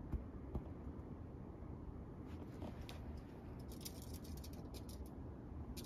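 Faint rustling and light scratchy crackles as a cat on its back paws and claws at cloth bedding while playing with a feather teaser, in short clusters through the middle, with a couple of small clicks near the start.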